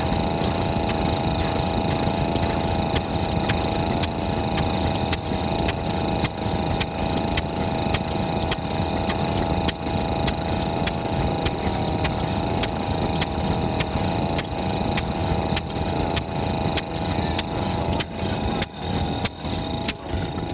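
Kubota FF-type 10 hp single-cylinder stationary engine running steadily at low speed with a regular firing beat, smooth after a new spark plug cured its misfire.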